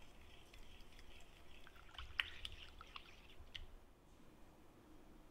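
Silicone spatula stirring yeast into milk in a glass bowl: faint liquid swishing, with a few light ticks, the clearest about two seconds in.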